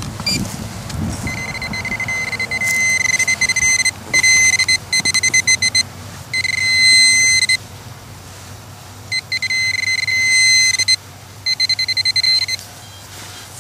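Handheld metal detecting pinpointer probing loose soil, sounding a high steady electronic tone in bursts: rapid short pulses at first, then longer solid tones, which signal metal close to its tip.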